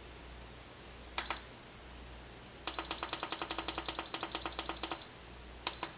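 Instant Pot control panel beeping as its buttons are pressed to set a 15-minute manual pressure-cooking time. There is a single beep about a second in, then a fast run of about twenty short high beeps over two seconds, and one more beep near the end.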